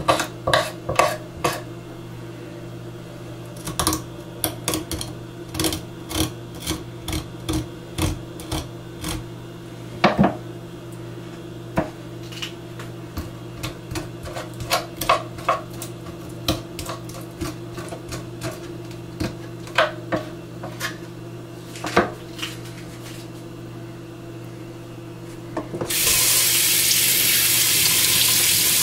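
A knife scraping the scales off a croaker on a wooden cutting board: an irregular run of quick scrapes and taps over a steady low hum. Near the end a kitchen tap is turned on and water runs steadily into a stainless steel sink.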